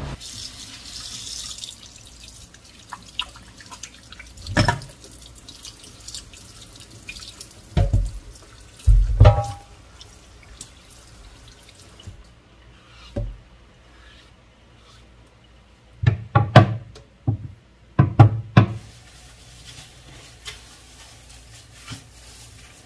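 Washing a tamarind-wood chopping board in a stainless steel sink: tap water runs briefly at the start, then the board is scrubbed by hand and knocks and thumps against the sink several times, in clusters.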